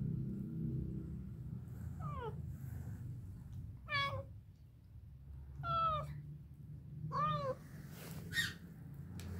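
Tabby cat meowing five times, short calls spaced about one and a half to two seconds apart.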